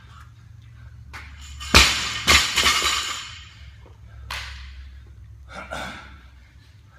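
A 135-lb barbell with bumper plates dropped from the front rack onto a rubber gym floor: one loud hit about two seconds in, a second hit about half a second later as it bounces, and the plates rattling briefly as it settles.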